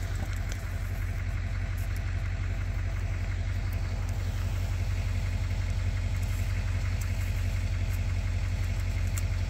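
Pickup truck engine idling: a steady low rumble that grows slightly louder.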